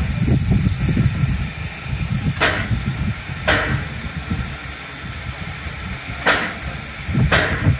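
Narrow-gauge steam locomotive giving four sharp bursts of steam, in two pairs about a second apart, over a steady low rumble.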